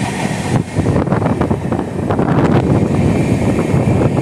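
Passenger train running along the track, its noise heard loud through an open window or door, with wind buffeting the microphone.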